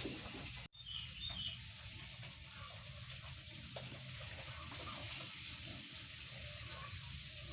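Steady outdoor background hiss with a few faint, short, high bird chirps about a second in. The sound cuts out for an instant just before the chirps.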